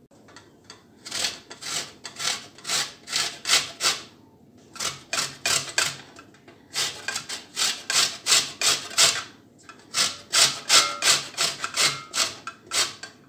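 Lemon rind being grated on a stainless steel box grater: rhythmic rasping strokes, about two or three a second, in runs broken by short pauses.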